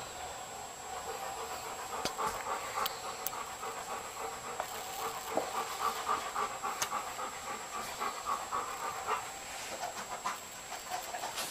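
A dog panting quickly and evenly, louder from about two seconds in, with a few sharp clicks among the breaths and a faint high-pitched steady whine underneath.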